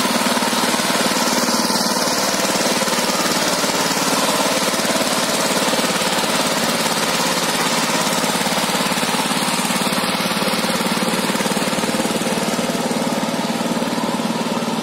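Single-cylinder diesel engine of a two-wheel power tiller running steadily under heavy load, pulling a fully loaded straw trolley across a field.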